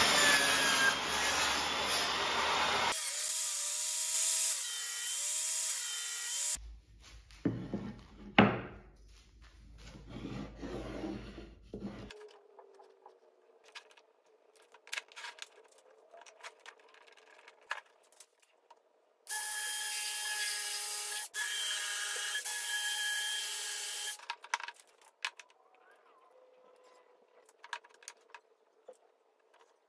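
A table saw cuts a softwood board for the first few seconds. Then come knocks and clicks of pine boards being handled and set down on a workbench. Past the middle, a power tool runs again for about five seconds.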